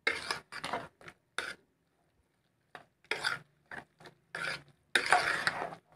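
Metal spoon scraping and pressing against the inside of a pressure cooker while mashing boiled potato and kidney beans: a run of irregular short rasping strokes, with a pause of about a second early on and a longer, louder scrape near the end.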